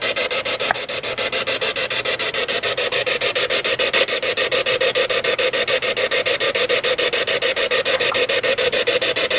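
Spirit box sweeping through radio stations: a steady hiss of radio static chopped into rapid, even pulses, with no clear words coming through.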